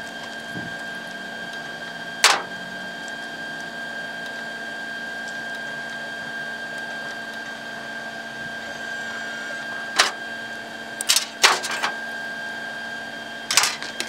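A welding machine running, giving a steady high electrical whine, with sharp clicks or taps of metal about two seconds in and several more in the last four seconds.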